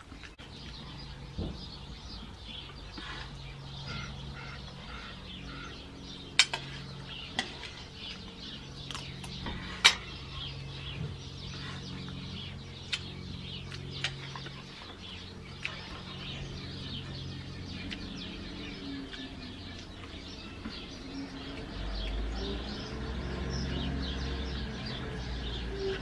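Chickens clucking in the background, with a few sharp clicks standing out, the loudest about ten seconds in.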